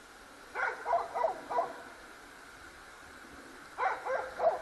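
A dog yapping: two quick runs of about four short, high barks each, one starting about half a second in and the other near the end.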